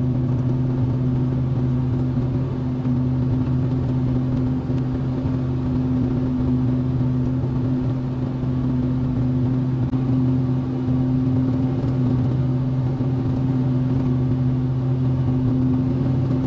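Small excavator's diesel engine running at a steady working speed: a constant, unchanging drone with a strong low hum.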